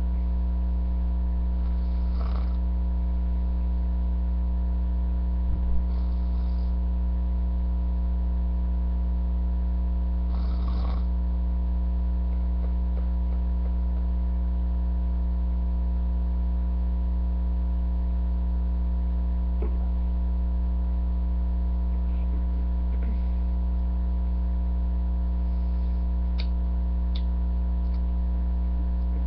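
Loud steady electrical hum, with the faint breaths of a person snoring in their sleep rising through it now and then, and a single soft thump about six seconds in.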